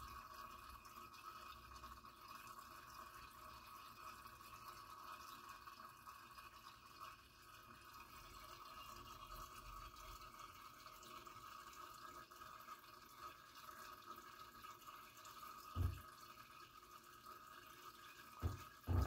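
Faint steady hum with a light trickle and drip of water in a small aquarium, broken by three short dull knocks near the end.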